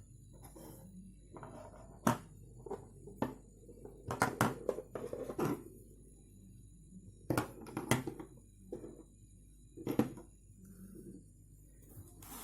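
Irregular clicks, knocks and rustling of small hard objects being handled and set down, several in quick succession about four to five seconds in and again near eight and ten seconds.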